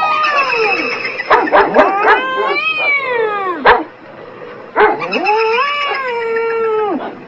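A cat yowling in long, drawn-out wavering calls, three in turn, with a dog's short, sharp barks in the gaps between them.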